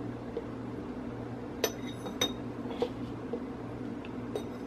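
Small metal spoon clinking lightly against the bowl and jar while stirring and scooping dry ground seasoning powder: a handful of short, bright clinks, the clearest three between about one and a half and three seconds in.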